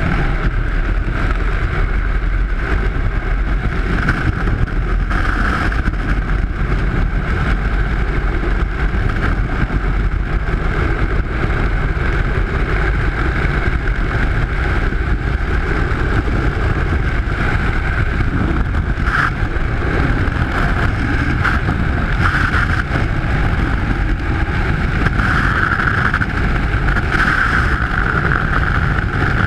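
Freefall wind rushing over a skydiver's GoPro microphone: a loud, steady rush with a high whistling tone on top that swells now and then, most strongly near the end.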